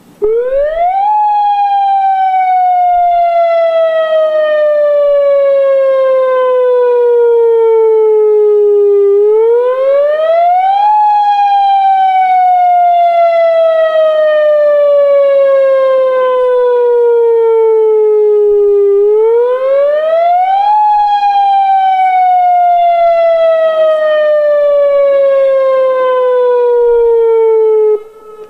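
A newly installed dam emergency warning siren being tested, sounding through loudspeakers. Its wail sweeps three times, each time rising quickly in pitch and then falling slowly over about eight seconds, and it cuts off abruptly near the end.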